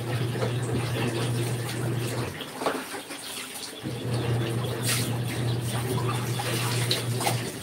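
Washing machine in its wash cycle: the motor hums steadily over churning water, stops for about a second and a half, then starts again and stops once more near the end. The start-stop pattern is the agitator pausing and reversing direction.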